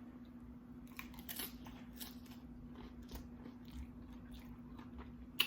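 Faint crackling and small clicks of nacho chips and seafood being handled on a loaded platter, with one sharper click near the end.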